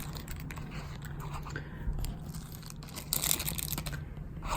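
Plastic bag crinkling and rustling as a pocket knife is pulled out of it: scattered small crackles, with a louder rustle about three seconds in and another near the end.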